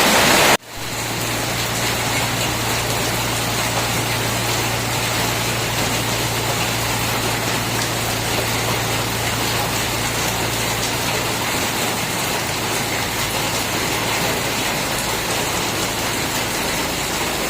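Heavy rain falling. It cuts off sharply about half a second in to a slightly quieter steady rain, with a low steady hum underneath.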